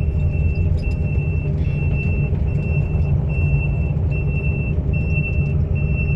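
Excavator diesel engine running steadily, with its high-pitched warning alarm beeping about once every 0.8 s as the machine moves off.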